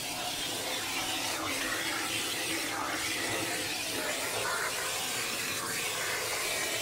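Steady hiss of a water sprayer hose running, rinsing shampoo out of a dog's coat.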